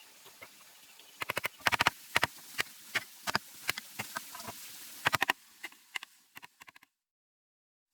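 A run of sharp, irregular clicks and knocks, some in quick clusters of three or four, cutting off abruptly about a second before the end.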